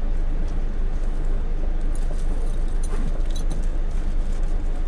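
Steady low rumble of a double-decker coach on a Scania K440IB chassis running at low speed, with a few faint rattles or clicks about two to three and a half seconds in.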